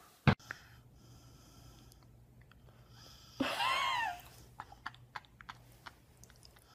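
A dog licking a person's face: soft wet smacking and snuffling, with small clicks. A sharp click comes just after the start, and one brief high squeal that rises and falls about three and a half seconds in.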